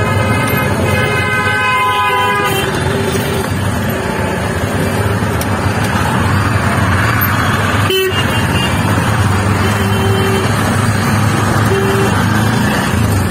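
Busy road traffic heard from a moving vehicle: steady engine and traffic noise, with a vehicle horn sounding for the first couple of seconds and short horn toots later on. The sound drops out briefly about eight seconds in.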